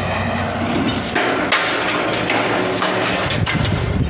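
Knocks and metallic clatter from the steel slats of a rolling shutter curtain being handled. There are a few sharp knocks about a second in and another cluster near the end.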